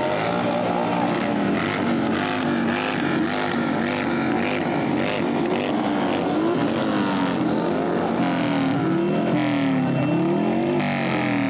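Several cruiser motorcycles, a Harley-Davidson Sportster V-twin among them, riding slowly past in a group, their engines rising and falling in pitch as the riders roll on and off the throttle.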